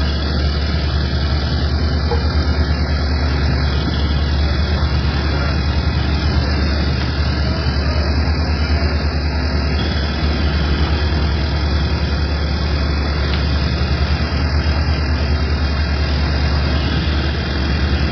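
An engine running steadily at idle: a constant low hum that does not change in speed.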